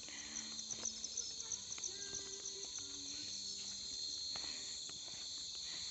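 A chorus of insects chirping: a steady high-pitched shrill with a fast, evenly pulsing trill running through it.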